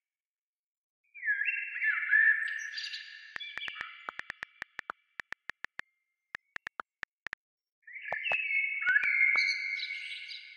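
Electronic chirps: two bursts of bleeping tones that glide down in steps, with a run of sharp clicks between them.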